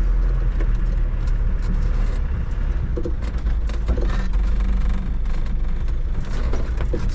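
Land Rover Defender's diesel engine running steadily, heard from inside the vehicle, with scattered knocks and rattles of the body as it drives over rough ground.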